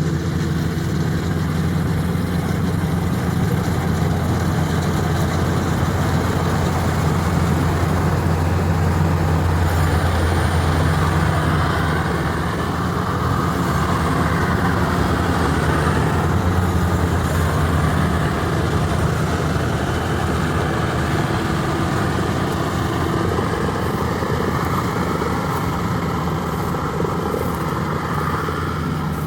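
Rice combine harvester's engine running steadily under load, with the whir of its cutting and threshing machinery, a constant low hum.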